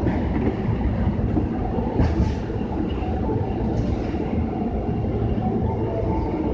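Osaka Metro 22 series subway car running, heard from inside the car: a steady low rumble of wheels and motors.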